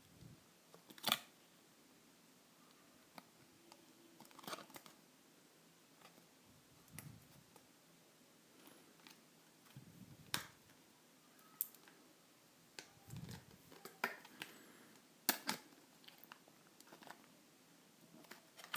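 Plastic packaging being handled while a small Bluetooth headset is worked out of its tray: scattered sharp clicks and taps at irregular intervals with a few soft rustles.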